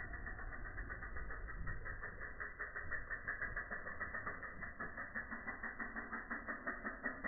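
Mountain bike's freehub ratchet clicking while it coasts, slowed down into a steady, muffled ticking at about seven a second.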